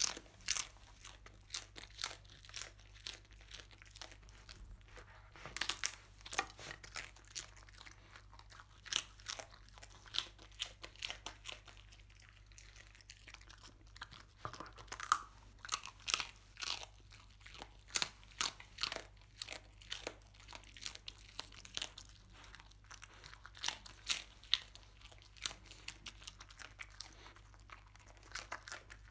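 A dog biting and chewing crisp scorched-rice crust (nurungji), with sharp, irregular crunches and a few seconds' lull near the middle.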